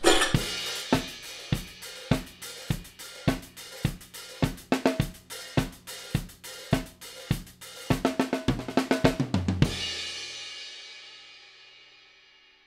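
Drum kit playing a steady beat with cymbals, hi-hat, snare and bass drum, quickening into a fill about eight seconds in, then ending on a final cymbal crash that rings and slowly fades away.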